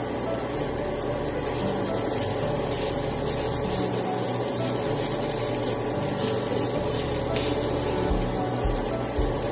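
Kimchi fried rice sizzling steadily in a nonstick frying pan, with soft irregular scrapes as a spatula stirs and presses it.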